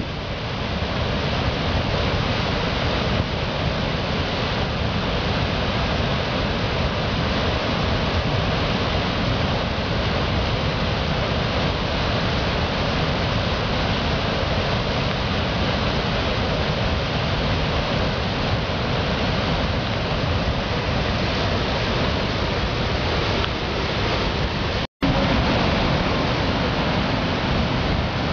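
Upper Yosemite Fall: white water rushing over the granite brink in a steady, unbroken roar. The sound cuts out for an instant near the end, then resumes just as before.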